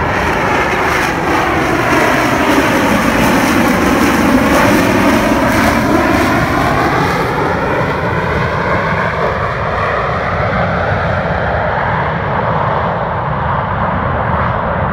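Harrier jump jet's Pegasus vectored-thrust turbofan running loud and steady as the jet comes in slowly and descends to a vertical landing, with a swirling, phasing tone that sweeps down and back up as it moves.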